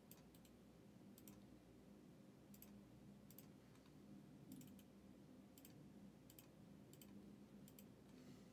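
Faint computer mouse clicks, often in quick pairs, about one every second, over near-silent room tone.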